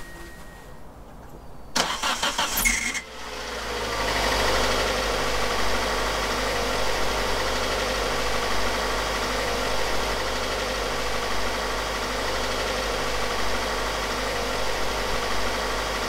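Car engine cold-started: the starter cranks briefly about two seconds in, the engine catches, then idles steadily.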